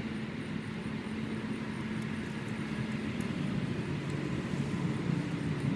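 Road traffic passing by, a steady engine hum with one vehicle going past near the end, its engine note dropping in pitch.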